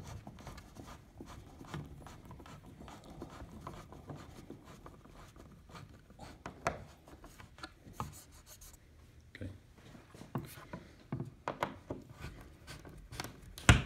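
Screw being driven by hand with a screwdriver through a picture ledge into the wall: faint scraping and creaking as it turns, with scattered small clicks and one sharp click near the end.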